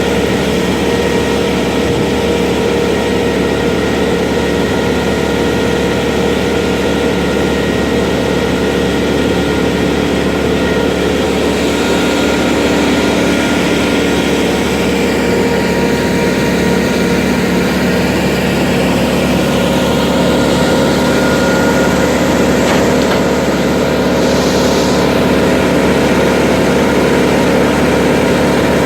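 A heavy machine's engine running steadily at constant speed. A faint high hiss sweeps down and back up about halfway through.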